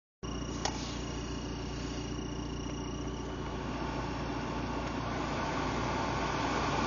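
BMW E36 heater blower motor running with a steady rush of air that grows gradually louder, after a single click near the start. The owner suspects the blower motor is failing because of a chirping noise.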